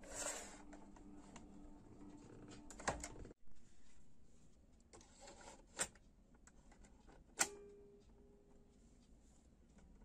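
Sharp plastic clicks and clunks from the cassette mechanism of a HAN radio cassette recorder as it is handled: the cassette door being shut and the piano-key transport buttons being pressed. A few separate clicks, the loudest about six and seven and a half seconds in, the last with a brief ring after it.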